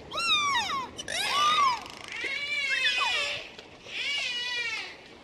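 Dolphin calls: about four high whistles and squeals, each under a second long, that rise and fall in pitch.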